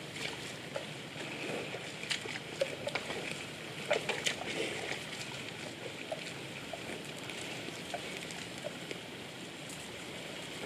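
Mud and water sloshing in a water buffalo's wallow, with scattered short splashes and clicks, most of them between about two and five seconds in, over a steady outdoor hiss.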